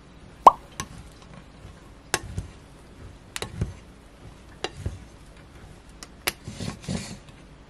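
White plastic rice paddle knocking and scraping against a stainless steel pot while mixing cooked konjac and brown rice: a string of sharp clicks every half second to second, the loudest about half a second in, with soft scrapes through the rice between them.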